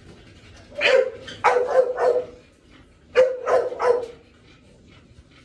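A dog barking: four loud barks in two pairs, the first pair about a second in and the second about three seconds in.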